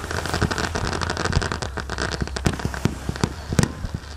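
Fireworks: a dense, continuous crackle of many small bursting stars, thinning near the end to a handful of separate sharp bangs.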